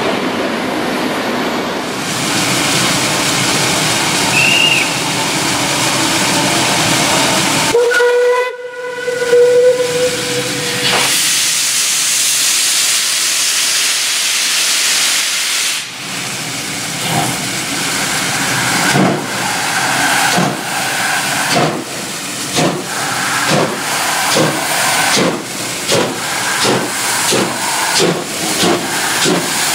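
A train running past, then steam locomotive 41 096's whistle in one steady blast of about two seconds. Loud steam hissing follows, then the locomotive's exhaust beats, quickening toward the end.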